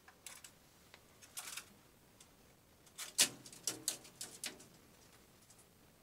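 Short bursts of scratching and scrabbling inside a galvanized sheet-metal flue pipe, typical of a trapped bird moving around in it. The loudest cluster comes about three seconds in, with a few more just after.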